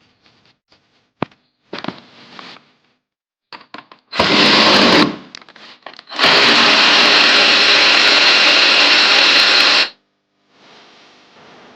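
A handheld power tool runs in two bursts, one of about a second and a longer one of about three and a half seconds, after a few scattered clicks and knocks of handling.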